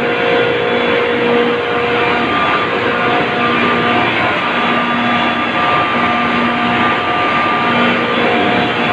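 Large Mycom and Sabroe reciprocating refrigeration compressors running in an ice plant machine room: a loud, steady mechanical din with several humming tones that fade in and out.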